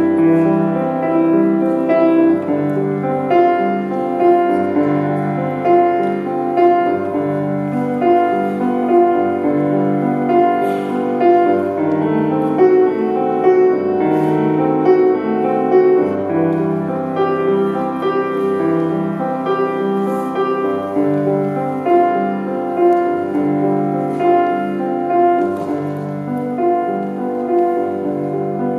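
Grand piano played solo: a steady, evenly paced stream of notes over low bass notes that change regularly.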